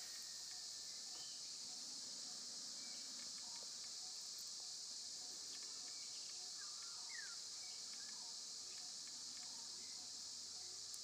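Steady high-pitched insect chorus, unchanging throughout.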